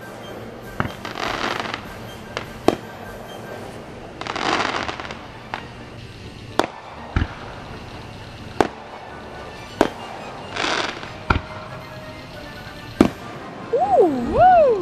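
Fireworks going off: single sharp bangs every second or two, with several crackling bursts that each last about a second. Near the end there is a wavering, rising-and-falling whistle.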